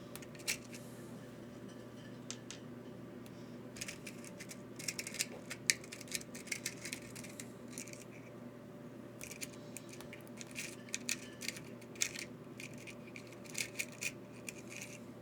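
Small metal screws clicking and rattling as they are picked through by hand, in irregular clusters of sharp clicks over a steady low hum.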